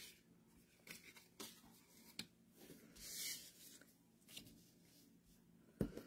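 Faint handling of paper and cardstock: light taps and small rustles as card pieces are picked up and set down, with a short papery rustle about three seconds in and a soft thump near the end.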